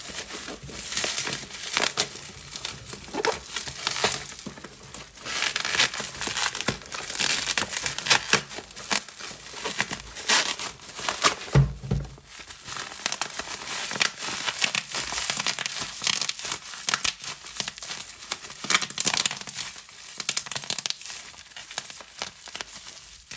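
Plastic bubble wrap being crinkled and squeezed, with many small sharp pops as the bubbles burst.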